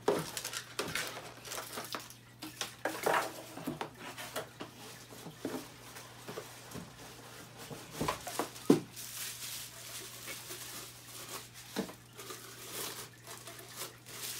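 Hard plastic juicer parts knocking and clattering as they are handled and set down on a table, with one sharp knock about two-thirds of the way in, followed by plastic wrapping crinkling. A low steady hum runs underneath.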